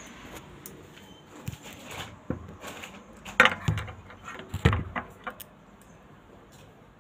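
Handling noise of a phone camera being moved about and set down on a concrete ledge: a run of knocks, clicks and rubbing, with two loud knocks about halfway through and another just over a second later.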